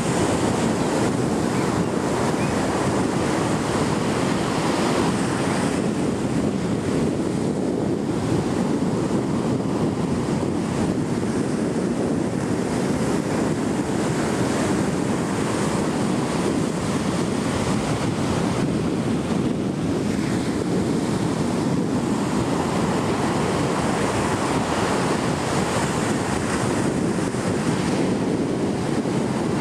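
Atlantic surf breaking on a sandy beach and washing up the shore, a steady rush of waves, with wind buffeting the microphone.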